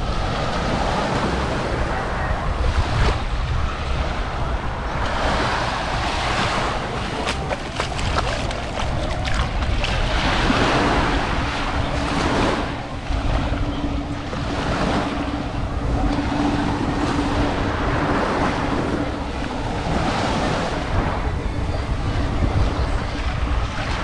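Sea waves breaking and washing up the beach in repeated surges every few seconds, with wind buffeting the microphone. A steady low hum sounds under the surf for several seconds in the middle.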